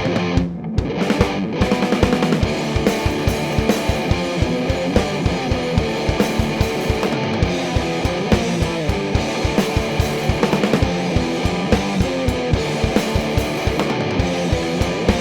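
Electric guitar, a Gibson EDS-1275 double-neck through a Vick Audio Violet Ram's Head fuzz pedal and Orange AD30 amp, playing a distorted, sustained rock riff with a drum kit. A fast, steady drum beat comes in about two seconds in.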